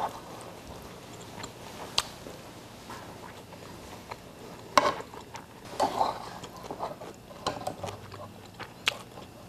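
Close-miked chewing of a mouthful of fried rice, with a few sharp clicks and smacks scattered through it.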